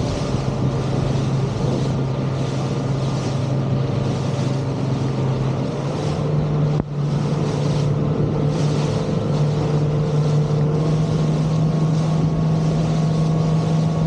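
Outboard motor of a motorboat running at speed, a steady drone that steps up slightly in pitch about halfway through. Rushing wash and wind on the microphone run under it.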